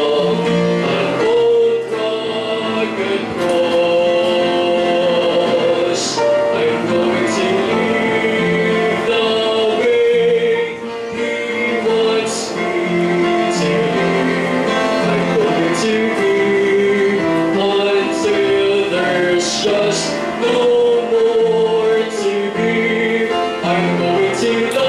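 A man singing a gospel song solo into a handheld microphone, with held notes over instrumental accompaniment.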